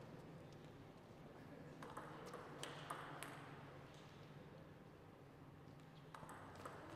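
Quiet hall ambience with a low steady hum and a few light, sharp clicks of a table-tennis ball, several between two and three seconds in and one more near the end.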